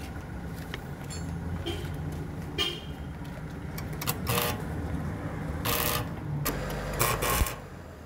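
Road traffic: vehicle engines rumbling steadily, with several short horn toots, the loudest a double toot near the end.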